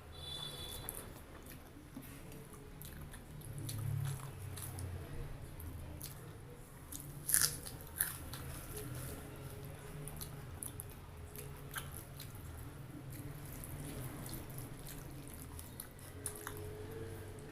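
Close-up chewing of a mouthful of food, with wet mouth sounds and scattered small clicks. A sharper click about seven and a half seconds in.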